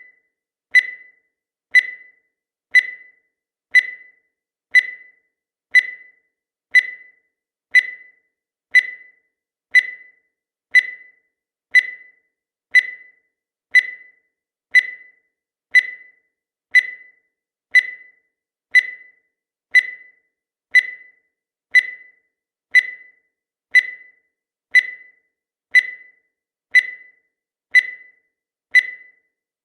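Countdown timer's sound effect: a short, high beep once every second, each starting sharply and dying away quickly, at an even, steady pace.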